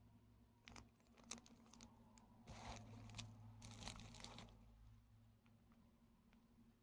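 Faint crinkling of a plastic bag being handled. A few scattered crackles are followed by a denser stretch of crinkling lasting about two seconds, which dies away about five seconds in.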